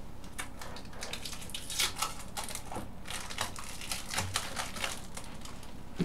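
Plastic packaging crinkling and rustling in irregular bursts as it is handled and pulled at.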